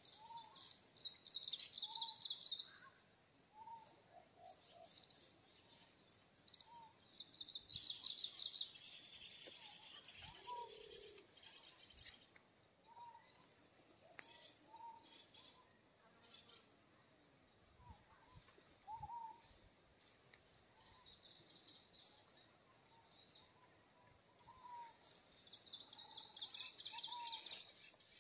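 Wild birds calling: short chirps repeated about once a second, over high-pitched trills and buzzing that swell several times, loudest for a few seconds near the middle.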